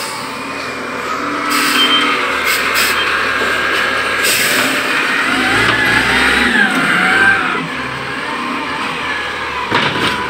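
Wheel loader's diesel engine running and revving under work, with a few short hisses in the first half and a wavering squeal about midway.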